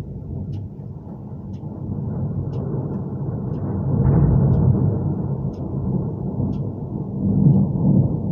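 Long rolling thunder rumble that builds over several seconds, peaks about four seconds in and again near the end, then starts to fade.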